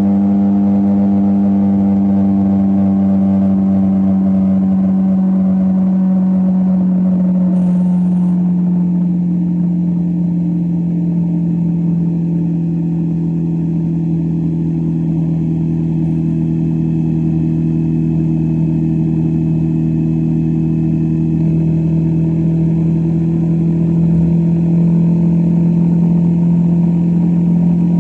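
Motorcycle engine running at a steady cruise, heard from the saddle, with road and wind noise. Its note sinks slowly through the first third and rises a little near the end.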